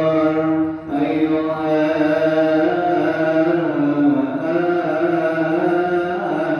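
Coptic liturgical chant sung by a priest's solo male voice, drawing out long melismatic notes that slide slowly up and down, with a steady low note held beneath. The voice breaks off briefly for a breath less than a second in.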